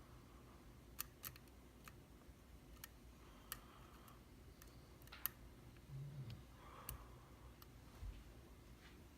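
Faint, irregular metal clicks of a lock pick working the pins inside a Mul-T-Lock Classic dimple lock cylinder during picking, about a dozen scattered clicks with no steady rhythm. The lock is held in a false set while the last pin is being set.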